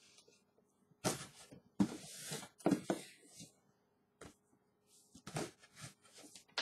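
A knife cutting open the top of a cardboard shipping box in a series of strokes, the loudest in the first few seconds and shorter ones near the end.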